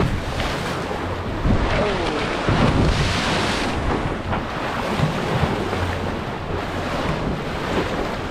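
Sea water rushing and splashing along the bow of a sailboat under way, with wind buffeting the microphone. The rush of water swells loudest a few seconds in.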